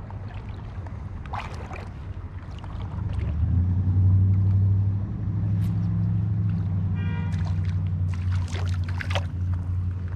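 Flowing river water rumbling low and steady close to the microphone, swelling for a couple of seconds about three seconds in.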